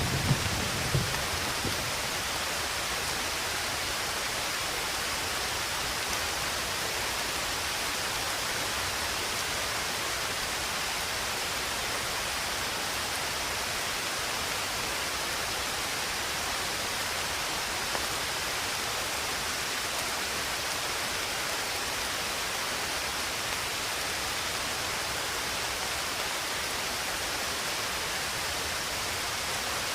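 Steady rain: an even, unchanging hiss with no single drops standing out. A low rumble dies away in the first second or so.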